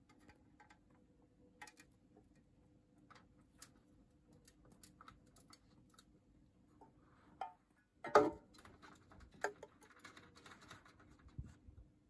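Zebra finch pecking seeds from a ceramic dish: irregular small ticks, with one louder knock about eight seconds in, over a faint steady hum.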